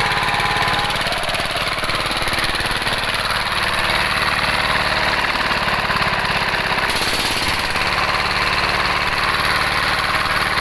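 Dompeng single-cylinder diesel engine running steadily at an even speed.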